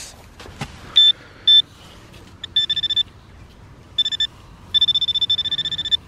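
Metal detector sounding high-pitched target tones as its coil passes over the dug hole. There are two short beeps about a second in, then longer pulsing tones, the longest near the end. The tones signal that the metal target is still down in the hole.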